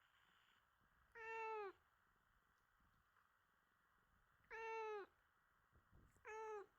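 A domestic cat meowing three times, each meow about half a second long, the last one shorter.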